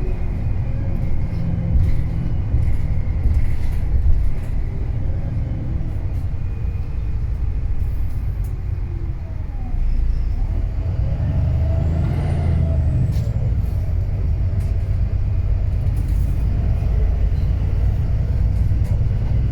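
Wright Pulsar 2 bus with a Cummins ISB diesel engine running, a steady low rumble with scattered rattles. It grows louder about ten seconds in.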